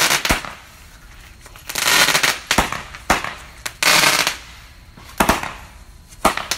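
Consumer fireworks going off shot after shot, likely from a multi-shot cake: sharp bangs mixed with short hissing bursts, about one every second or so.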